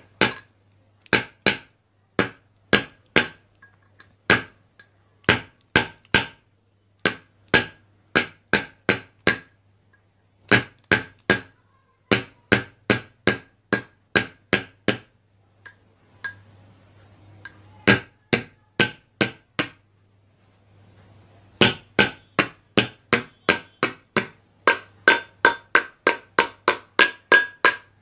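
Hammer blows on metal, sharp and ringing, about two to three a second, in runs with brief pauses and a quicker run near the end. They are knocking a ceiling fan motor's ball bearing loose from its seat.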